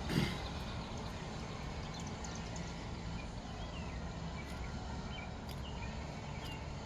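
Steady outdoor background noise, with a short thump just after the start and a few faint, short high chirps scattered through.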